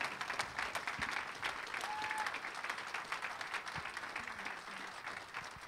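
Congregation applauding, a dense patter of many hands clapping that slowly fades toward the end.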